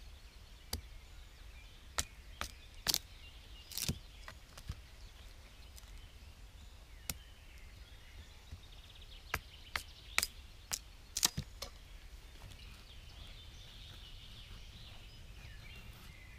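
Thin kindling sticks being split with a blade: about a dozen sharp, short cracks and knocks of wood at irregular intervals, bunched in the first two-thirds, over a faint steady outdoor background.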